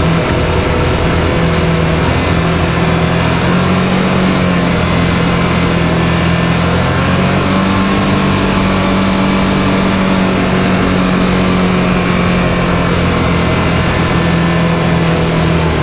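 Can-Am Maverick X3's turbocharged three-cylinder engine running at a fairly steady speed under way, its pitch rising a little partway through, over a constant wash of driving noise.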